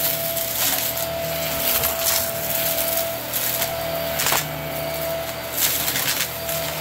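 A Hart cordless stick vacuum runs with a steady motor hum and a thin high whine. Over this come repeated sudden surges of crunching and rattling, about once a second, as debris is sucked up off the rug.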